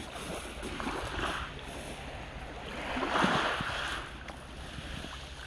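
Small waves washing up on the beach, one swelling noticeably about three seconds in, with wind on the microphone.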